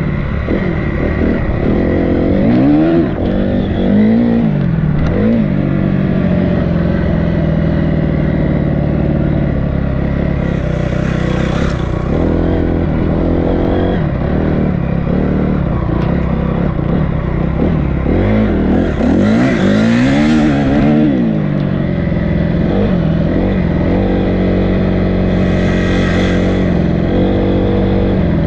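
Dirt bike engine running under riding, its revs rising and falling as the rider accelerates and eases off, with a few brief bursts of hiss.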